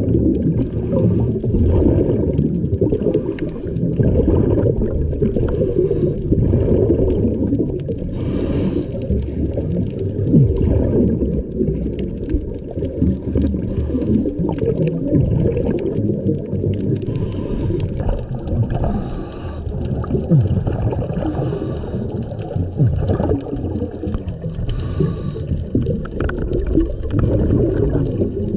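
Scuba diver breathing through a regulator underwater: a steady low bubbling with a breath drawn every few seconds.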